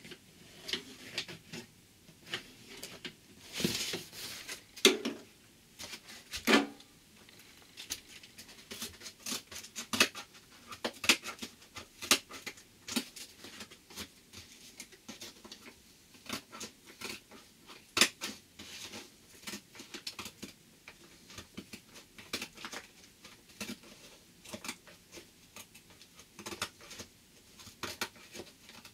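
Cardboard being cut and handled: a long run of irregular short snips, scrapes and rustles, a few louder ones about four to seven seconds in.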